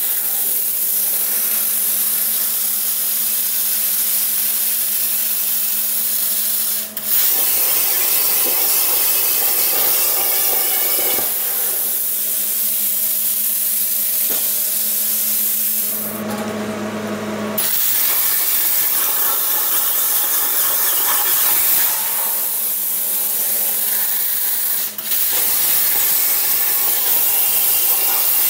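Handheld plasma cutter torch hissing steadily as it cuts steel plate by hand, finishing a cut that the CNC left incomplete. It runs in several stretches, and the sound changes suddenly about 7, 16 and 25 seconds in as the torch stops and restarts or moves along the cut.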